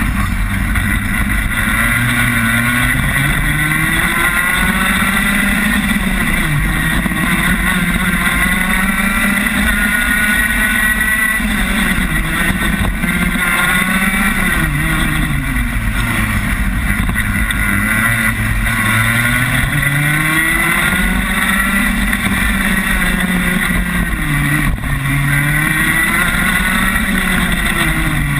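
Rotax Max 125cc two-stroke kart engine heard onboard at racing speed, its pitch climbing under acceleration and dropping for the corners, over and over through a lap.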